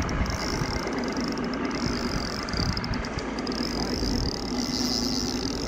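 Boat's outboard motor idling: a steady low hum with a hiss over it.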